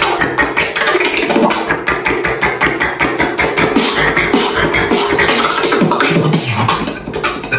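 Solo beatboxing: fast vocal drum hits, kicks and snares, with a low pitched line sliding up and down underneath. It eases off briefly near the end.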